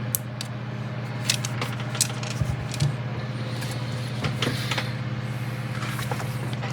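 Light scattered clicks and rustles of small plastic model parts and papers being handled on a work table, over a steady low electrical hum.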